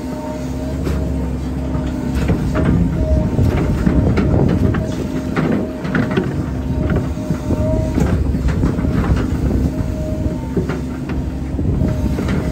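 Hydraulic excavator running under load: a steady engine rumble with a hydraulic whine that comes and goes, and scattered knocks and clanks from the machine and its bucket working wet mud. It runs louder from about two seconds in to about six seconds in.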